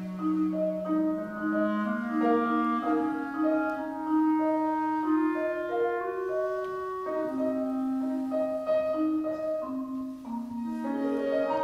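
Small chamber ensemble playing contemporary classical music: clarinet, piano and marimba, with overlapping held notes that shift in pitch every second or so.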